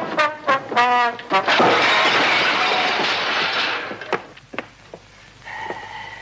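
A brief trombone blast, then a long crashing and clattering sound effect of a fight, about two seconds of smashing that fades out, followed by a few faint knocks.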